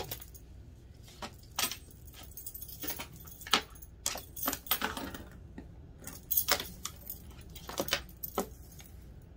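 Tarot cards being shuffled and laid down on a tabletop by hand: an irregular string of sharp clicks, taps and light clinks.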